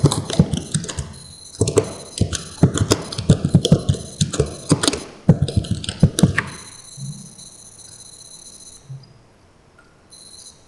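Typing on a computer keyboard: a quick, irregular run of key clicks for about six seconds, then it stops. A faint high-pitched whine runs underneath.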